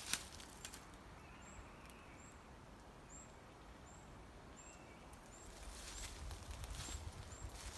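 A small bird repeating a short, high, thin call, roughly one every 0.7 seconds. Footsteps on the forest floor are heard at the start and resume over the last couple of seconds.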